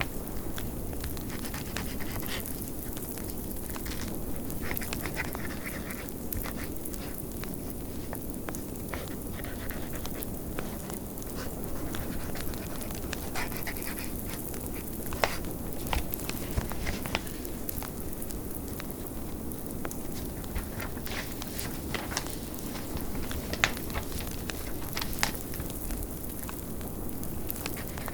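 Steady low rush of blizzard wind with a wood fire crackling, scattered small pops and a few sharper cracks standing out.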